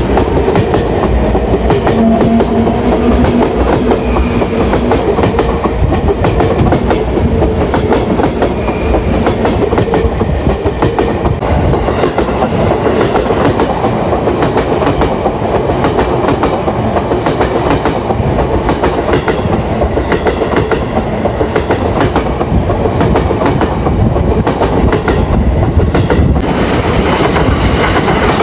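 Train wheels passing close by over a rail joint: a steady rumble with repeated clickety-clack as each wheelset strikes the gap at the jointed rail. About 26 seconds in it cuts abruptly to another passing train clattering over the joints.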